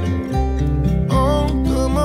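Background song led by acoustic guitar, with a steady bass underneath.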